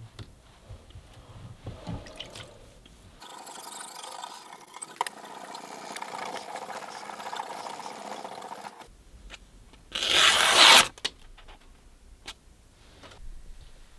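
Light knocks as a whetstone is set into its wooden holder, then a sword blade scraping steadily across the wet whetstone for about five seconds. About ten seconds in comes a brief, loud rip of a sheet of paper tearing under the blade.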